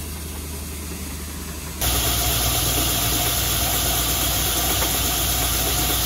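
Allis-Chalmers Gleaner Baldwin combine harvester running steadily while its unloading auger pours wheat into a trailer. About two seconds in the sound steps up louder, with a steady hiss over the engine hum.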